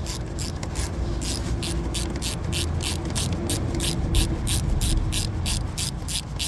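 Hand ratchet clicking steadily, about three to four clicks a second, as it runs a coil-mounting stud down with a long socket.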